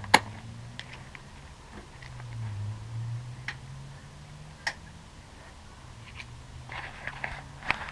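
A loud sharp click just after the start, then a few scattered clicks and a quick run of ticks near the end, over a low steady hum.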